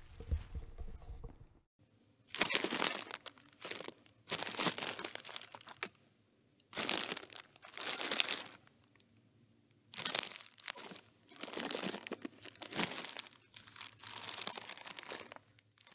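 Crumpling and crinkling, like something being scrunched by hand, in about six bursts of one to three seconds with short quiet gaps between them.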